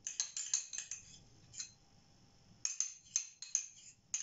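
Quick clinks of a metal spoon scraping and tapping against a small ceramic dish as spice paste is scraped out, in two short runs with a pause between.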